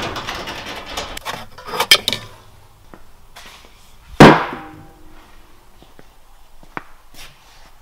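Workshop handling noises: rustling and light clicks in the first two seconds, then a single loud, sharp knock with a short ring about four seconds in, and a few faint clicks near the end.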